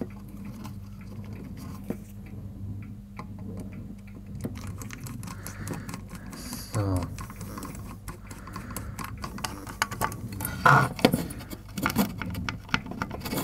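Small clicks and ticks of a screwdriver turning screws into an induction hob's circuit board and aluminium heatsink, over a steady low hum, with a few louder knocks near the end.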